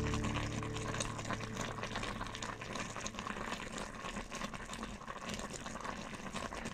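Braising liquid of a pork-hock pata tim simmering in a pot: a soft, constant crackle of many small bubbles popping. The tail of background music fades out at the start.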